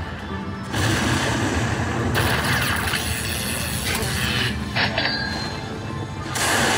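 Lightning Link slot machine's bonus-round sound effects: a rattling, whirring spin sound in several stretches, with a short high chime about five seconds in.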